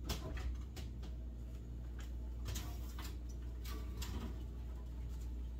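Upright freezer door being opened and freeze-dryer trays handled inside it: a scattered series of light clicks and knocks over a steady low hum.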